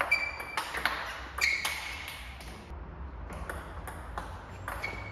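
Table tennis rally: the plastic ball clicks off the bats, one of them faced with Sauer & Tröger Monkey long-pimpled rubber, and pings as it bounces on the table. There is a short pause a little past halfway before the strokes resume.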